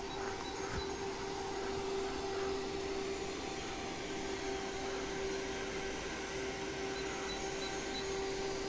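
A steady machine hum holding one constant pitch over an even rushing noise.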